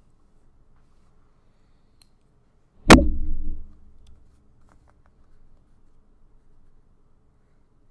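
A single sharp thump about three seconds in, with a short low ring after it, then a few faint light clicks.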